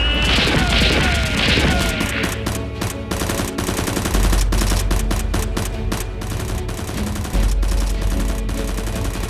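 Gunfire sound effects, rapid strings of shots like automatic weapons firing, over background music with a steady bass. The shots come thickest from about two seconds in.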